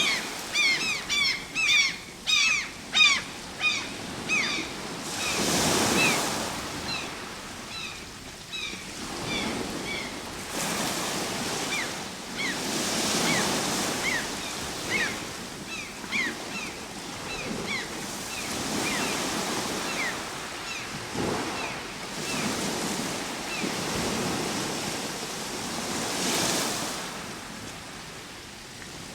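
Ocean surf breaking and washing in, swelling and falling back every several seconds. Over it, birds give many short, falling chirps, thick in the first few seconds and thinning out toward the middle.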